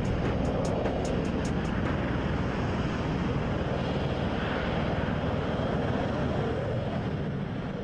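Bell Boeing V-22 Osprey tiltrotor flying in helicopter mode: a steady heavy drone of its proprotors and turboshaft engines with a fast low pulsing, fading near the end.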